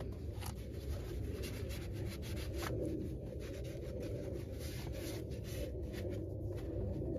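A cloth rag rubbing and wiping over a brake caliper with irregular soft scuffing strokes, over a steady low rumble.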